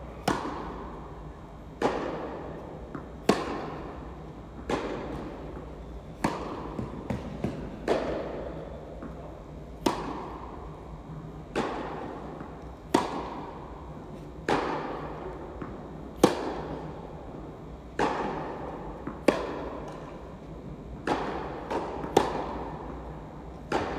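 Tennis ball being struck back and forth in a rally: sharp pops of racquet hits alternating with ball bounces on the court, about one every second and a half, each with a short echo off the hall.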